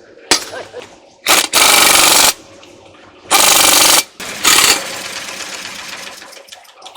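Pneumatic impact wrench hammering in four short bursts, the longest under a second, after a sharp click near the start.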